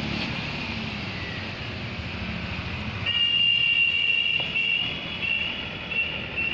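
Road traffic with vehicle engines running. About three seconds in, a high-pitched steady tone sounds for over a second, then breaks into a string of short beeps.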